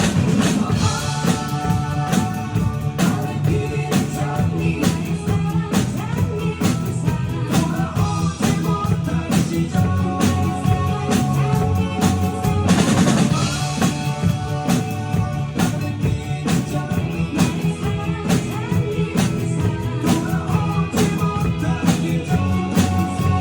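A group of drummers playing a steady beat along to a recorded backing song with melody and vocals.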